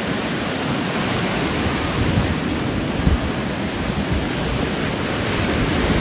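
Small waves breaking and washing up the sand at the shoreline, a steady rushing surf, with wind buffeting the microphone.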